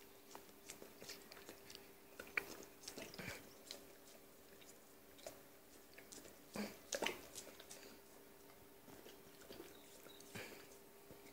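A dog biting and chewing a frozen popsicle, with irregular faint crunches and a louder run of crunching about seven seconds in.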